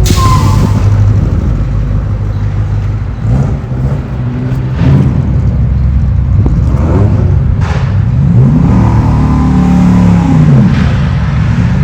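Vehicle engines running, with the engine pitch rising and falling as they rev and change speed in the second half.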